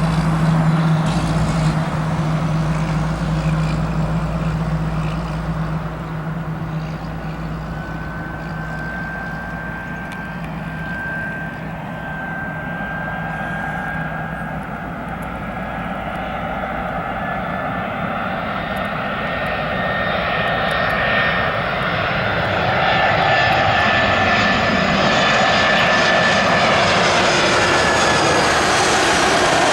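Airbus A319 jet airliner on approach to land, its engines giving a whistling whine over a broad rumble that grows louder over the last third as the aircraft draws near. A steady low hum underlies the first half and fades out.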